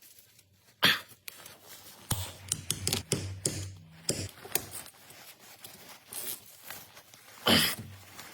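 Scattered clicks and knocks of tools and parts being handled during front-axle work, with a low hum from about two to four seconds in and a louder scraping noise near the end.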